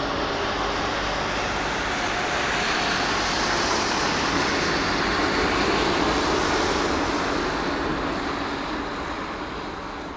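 Jet roar of a Boeing 747-400's four engines on the runway: a broad, steady rumble that swells to its loudest about halfway through, then fades as the aircraft draws away.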